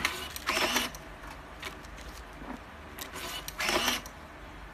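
ED-100 (GL3000) automatic tape dispenser in auto mode, feeding out and cutting fresh pieces of tape after the previous ones are taken: two short mechanical whirring bursts, about a second in and near the end.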